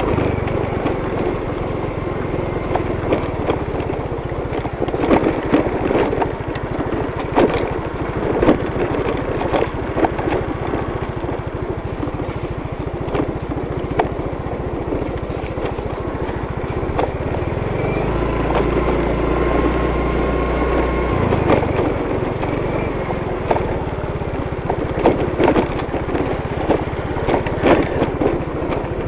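Motorcycle engine running while riding over a rough, muddy dirt road, with frequent short knocks from the bumps.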